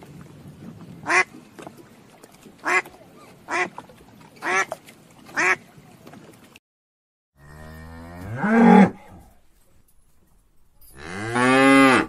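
A duck quacks five times, short single quacks about a second apart. After a brief silence a cow moos twice, each long moo rising in pitch, the second cut off at the end.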